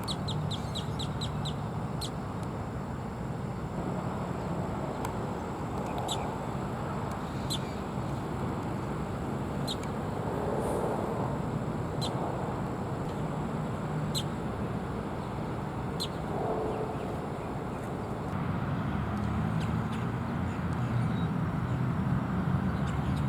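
Bald eagles calling: a quick run of short, high chirps near the start, then single high chirps every couple of seconds, over a steady low rumble of distant traffic.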